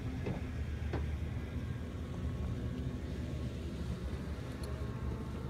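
Steady low rumble of road traffic, with a couple of faint clicks about a second in.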